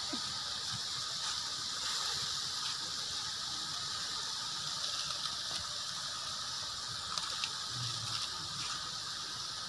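Shredded banana heart sizzling in a large aluminium wok over a wood fire: a steady hiss, with a few faint ticks in the second half.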